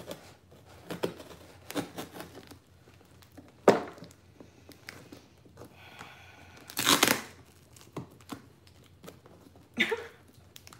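A knife jabbing and scraping into a heavily taped cardboard box, then packing tape picked at and torn by hand, with a loud rip about seven seconds in and a shorter one near the end. A sharp knock comes a little before four seconds in.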